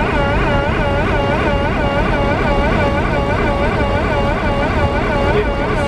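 A high warbling alert tone, its pitch dipping and rising about four times a second, sounding steadily for about six seconds and then cutting off, over the low steady rumble of the aircraft cabin.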